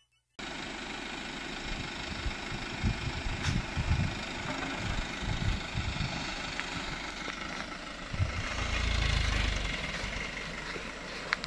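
Dump truck's engine idling, with wind gusts buffeting the microphone and a louder low rumble about eight and a half seconds in.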